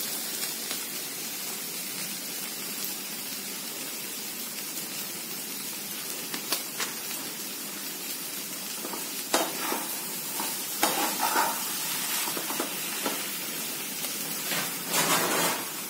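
Potato, paneer and vegetable stuffing frying in a non-stick pan with a steady sizzle. A steel spatula scrapes and clicks against the pan several times, mostly in the middle and near the end, as the mixture is stirred.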